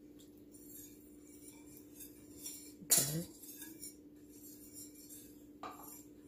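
A wire whisk beats egg yolk and lemon juice in a metal saucepan: quick light metallic clinks and rattles of the wires against the pan, with one louder knock about three seconds in. A faint steady hum runs underneath.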